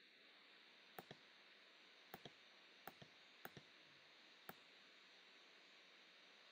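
Computer mouse clicks, about five quick press-and-release pairs over the first four and a half seconds, against faint room hiss.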